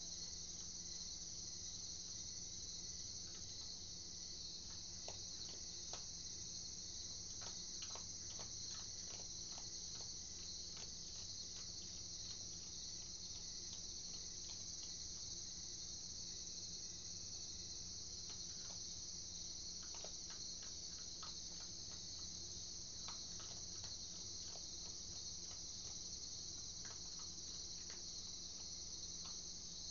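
Steady high-pitched chorus of night insects, with scattered faint clicks through it that fit an opossum crunching dry cat food close to the microphone.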